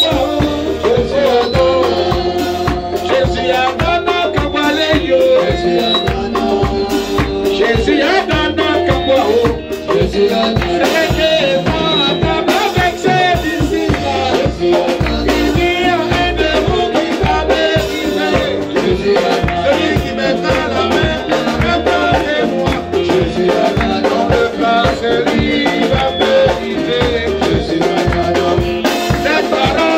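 Live praise music: a man singing into a handheld microphone over a drum kit keeping a steady beat, with a shaker rattling along.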